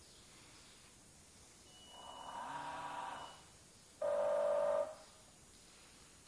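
Small electric motors on a model catamaran whining in two short runs. The first swells up and fades about two to three seconds in; the second is louder and steadier, starting and cutting off abruptly about four seconds in.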